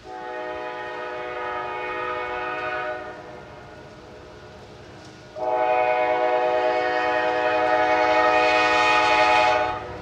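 Norfolk Southern freight locomotive's air horn sounding two long blasts, a chord of several notes: the first for about three seconds, the second starting about halfway through, longer and louder. A low steady rumble of the approaching train lies beneath.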